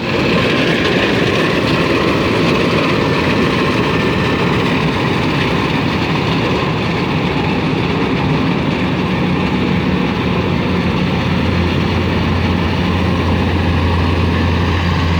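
Engine of a rice harvesting machine running steadily at work. A low steady hum strengthens about eleven seconds in.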